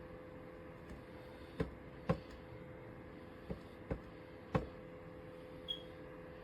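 EasyAcc 1200 ml portable dehumidifier running with a steady hum. Half a dozen sharp clicks at irregular spacing break over it in the middle of the stretch.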